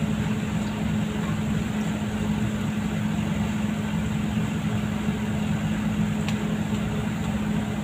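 A steady, even mechanical hum, with a faint scrape of a metal ladle stirring minced garlic in a wok about six seconds in.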